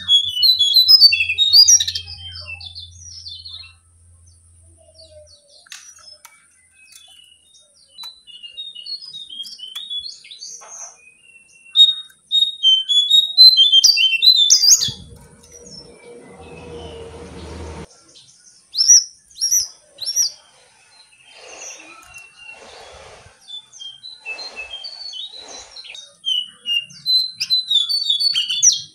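Caged jongkangan songbird singing its chirpy 'king kung kang king' song in quick bursts of high notes, a new phrase every few seconds. A rustling noise with a low rumble comes about halfway through.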